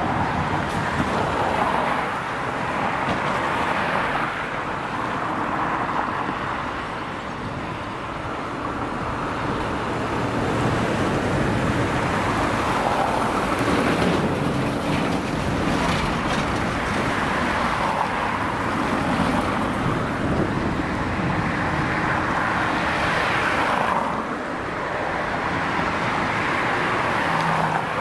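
Road traffic passing close by: a continuous rush of tyres and engines that swells as each vehicle goes by. The loudest stretch comes about halfway through, as a heavy Iveco truck passes right alongside.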